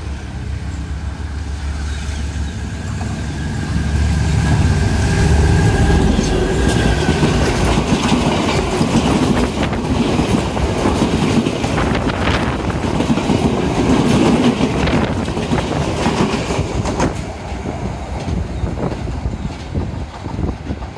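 Sri Lanka Railways Class M9 (Alstom Prima) diesel locomotive passing close by: its engine drone and a high whine grow louder over the first few seconds. The carriages follow with a rapid clickety-clack of wheels over rail joints that fades near the end.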